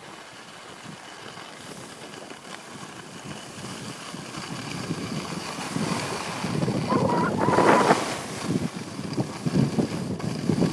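Wind buffeting the microphone and skis sliding and scraping over packed snow, getting louder as speed builds through the second half. A brief wavering higher tone comes in about seven seconds in.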